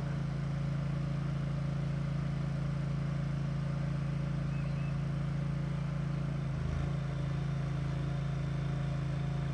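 Small engine of a ride-on bunker machine running steadily, a lawnmower-like hum, as it works to unclog a flooded golf sand bunker; the hum dips briefly about two-thirds of the way through.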